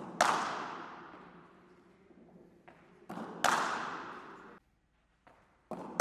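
Cricket bat striking the ball hard three times, about three seconds apart. Each crack is preceded by a softer knock and followed by a long echo that fades away.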